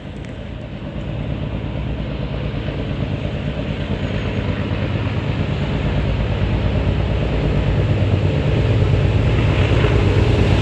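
Class 37/9 diesel locomotive 37901, a Mirrlees-engined Class 37, approaching under power with a heavy train of wagons, its engine working hard and growing steadily louder as it nears.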